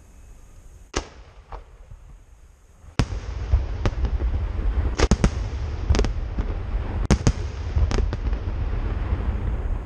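Aerial fireworks shells bursting in a series of sharp bangs. A couple come in the first seconds, then they come about once a second, some in quick pairs, over a steady low rumble.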